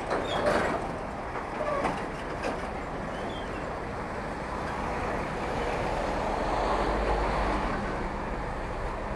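Highway traffic running past: a steady rush of passing vehicles, swelling with a deep rumble as a heavy vehicle goes by about six to eight seconds in. There are a few short knocks in the first two seconds.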